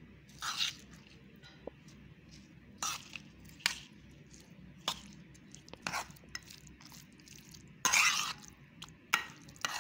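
Metal spoon mixing curd rice in a steel vessel: irregular soft squelches of yogurt-coated rice with scattered scrapes and taps of the spoon on the pot, the biggest about eight seconds in.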